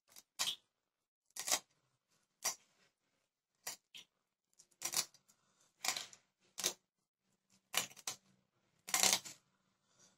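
Small fish being sliced and scraped against the upright curved blade of a boti: about a dozen short, irregular rasping cutting strokes, the loudest near the end.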